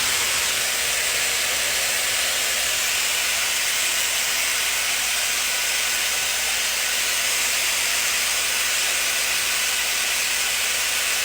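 Hair dryer running steadily: a constant rush of blown air at an even level.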